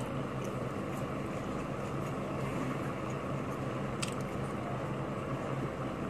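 A steady low mechanical hum, such as a fan or other household appliance running, with one faint click about four seconds in.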